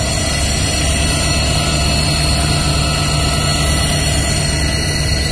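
Fire engine's engine running steadily close by, a low, even drone with no breaks.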